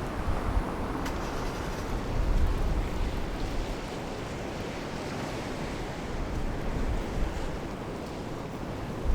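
Wind buffeting the microphone: a steady rushing noise with low rumbling gusts that swell and ease.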